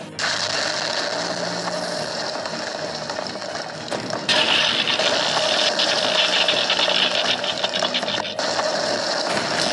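Continuous dense, rapid clicking and rattling noise, ratchet-like, that gets louder about four seconds in.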